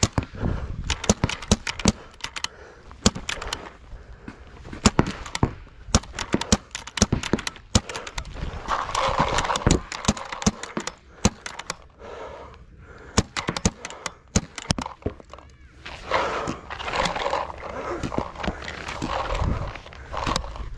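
Pump paintball markers firing during play: a steady stream of sharp, irregular pops, several a second.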